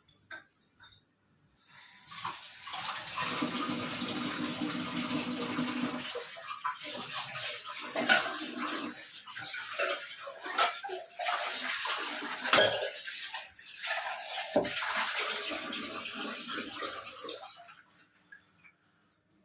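Tap water running into a kitchen sink for about fifteen seconds, with a few sharp knocks and clinks of a vessel being rinsed under it.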